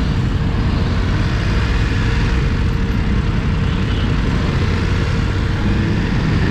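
Motorcycle engine running at low revs while crawling through dense traffic, with the surrounding cars and buses mixed in as a steady low rumble.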